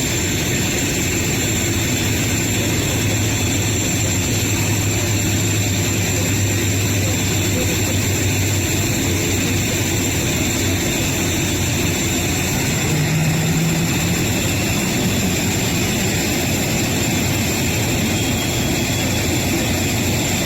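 Jet airliner engines running, a steady rumble and hiss with a low hum that fades out about nine seconds in.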